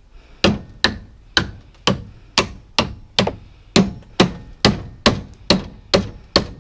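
Hammer blows struck steadily, about two a second, each a sharp knock with a short ring.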